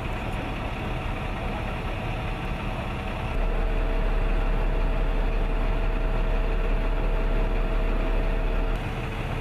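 Fuel truck's engine idling at about 700 rpm while the fuel pump is pressurised, a steady low rumble with a faint steady hum. It gets louder about three seconds in and drops back shortly before the end.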